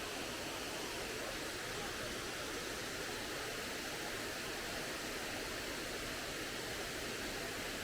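Salza waterfall: a steady, even rush of falling water.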